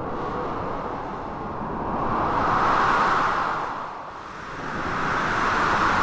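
Blizzard wind mixed with crashing sea waves: a dense rushing noise that swells and fades, peaking about three seconds in and again near the end.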